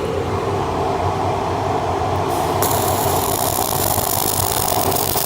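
Fume extractor running steadily. About two and a half seconds in, the arc of a flux-cored stainless steel wire welder strikes up and sizzles with a steady hiss, laying a weld bead.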